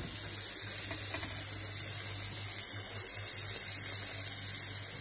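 Steady sizzling of minced-meat-stuffed flatbread cooking on an oiled grill pan.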